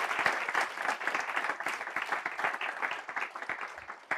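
Audience applauding: dense clapping that thins out and dies away near the end, with a few last separate claps.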